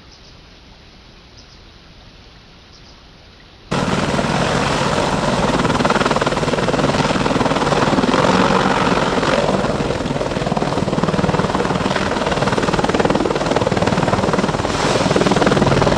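Faint hiss for a few seconds. Then, abruptly, loud steady helicopter rotor and engine noise, dubbed in as the bumblebee's 'strange noise'.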